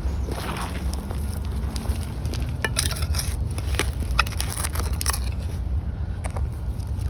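Digging through soft soil littered with broken glass: scattered crunches and clinks, thickest in the middle few seconds, over a steady low wind rumble on the microphone.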